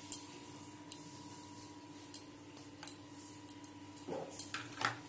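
Light metallic clicks of a spoon against a small steel bowl and plate while spice pastes are spooned in: half a dozen sharp ticks spread out, bunching together near the end.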